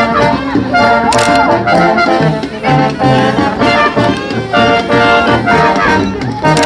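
Brass band playing a lively tune outdoors: trumpets and trombones carry the melody over a pulsing low bass line and a steady percussion beat.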